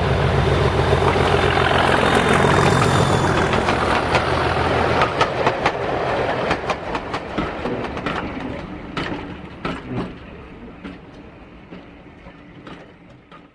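An OO gauge model diesel locomotive and its tank wagons passing close by: a low, steady hum for the first five seconds or so, then a run of sharp clicks as the wheels cross the rail joints, fading as the train moves away.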